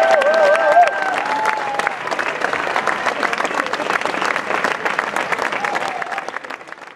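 Crowd applauding, dense clapping with cheering over it in the first couple of seconds, fading out at the end.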